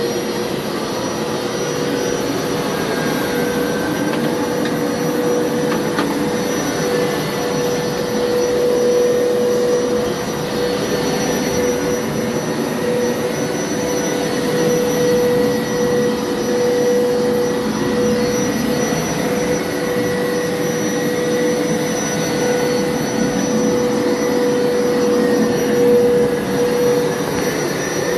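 Hoover carpet washer running in rinse mode, its motor giving a steady whine over the rush of suction.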